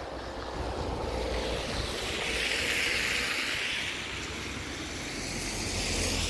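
A vehicle passing on the snow-covered road, its rushing noise swelling to a peak in the middle and fading again, over wind rumbling on the microphone.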